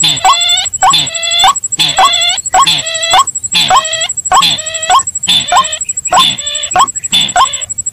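Bird-lure playback of white-breasted waterhen (ruak-ruak) calls mixed with sintar ladang crake calls, repeated in a steady run of about two calls a second. A thin, steady high tone runs underneath.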